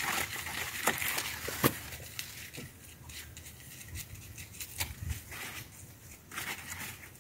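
A wooden stick scraping and scratching through soil and dry leaf litter, working granular fertiliser into the ground around a young tree. Faint, with scattered short scrapes and ticks.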